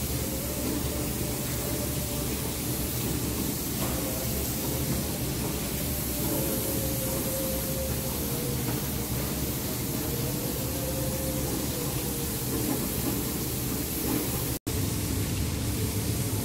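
Steady hiss of airless spray painting, primer being sprayed onto a steel ship hull, over machinery running with a faint hum that wavers slightly in pitch. The sound breaks off for an instant near the end.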